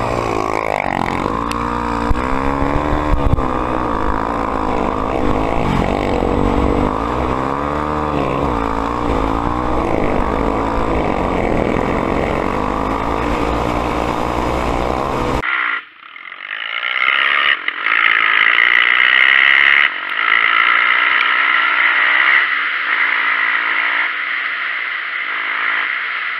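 Honda XR 250 Tornado's single-cylinder four-stroke engine revving up and down as the dirt bike is ridden, with a heavy low rumble. About fifteen seconds in the sound cuts abruptly to a steadier, higher-pitched drone.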